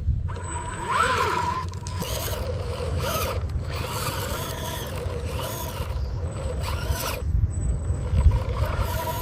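Small electric motors and gearing of RC construction models whining, rising and falling in pitch over a steady low rumble, with a few clicks.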